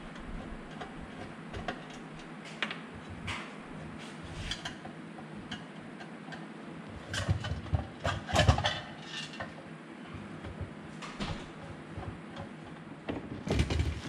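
Screwdriver working the screws and parts of a metal 50-amp RV outlet box: scattered clicks and light metallic knocks, with a louder run of knocks and rattles about seven to nine seconds in and again near the end.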